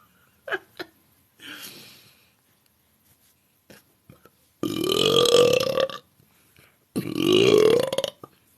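A woman's two long deliberate belches, a second apart, each rising in pitch toward its end.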